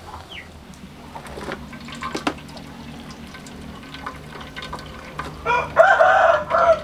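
A rooster crows once near the end, a loud wavering call lasting about a second and a half. Before it, a few light knocks of a utensil against the pots.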